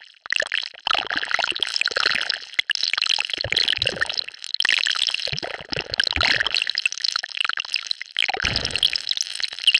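Designed sci-fi sound effect of an alien virus mutating: a continuous liquid-like bubbling and crackling texture, mostly high-pitched, with a few deeper surges about four, six and eight and a half seconds in.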